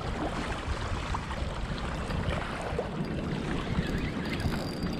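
Steady wind rumble on the microphone over the wash of a strong river current.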